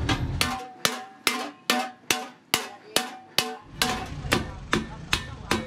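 Hammer striking a sheet-metal stove cylinder in a steady rhythm, about two and a half blows a second, each blow ringing briefly.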